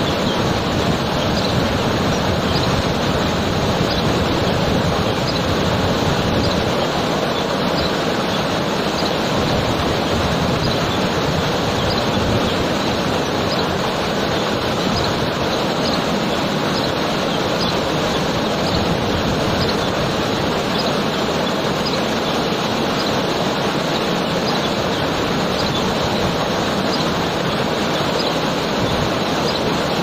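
Waterfall pouring steadily onto rock, a loud, even rush of falling water. A bird's faint high chirp repeats about once a second.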